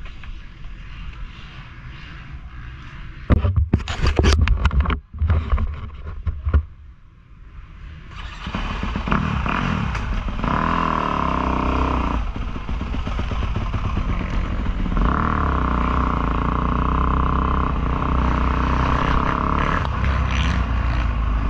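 Motocross dirt bike engine heard from an on-board camera. Low rumble with a few seconds of loud, rough buffeting early on, then from about eight seconds in the engine running hard and steadily on the throttle, with two long stretches of held high revs.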